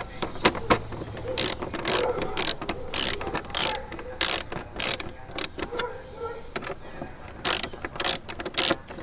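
Ratcheting hex driver clicking in short, irregular runs as small hex bolts on the motorcycle's fuel-tank side cover are tightened.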